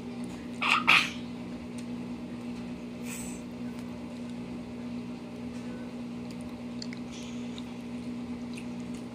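A child chewing a mouthful of food, with small wet clicks and smacks and a short louder sound about a second in, over a steady low electrical hum.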